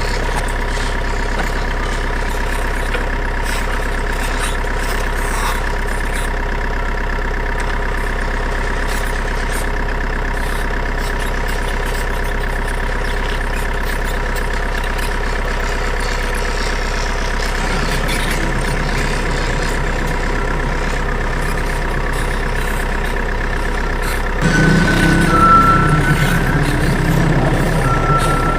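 Truck engine idling sound from an RC offroad truck, steady, then louder and rising in pitch about twenty-four seconds in as if revving.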